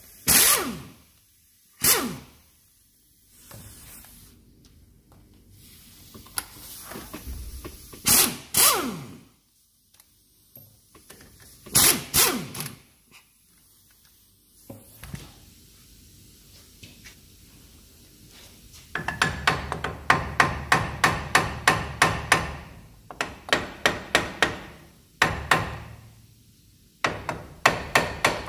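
Air impact wrench on a Range Rover Classic's front hub bolts, fired in four short bursts, each winding down in pitch afterwards. From a little past halfway, runs of rapid hammer blows on the hub, about three or four a second.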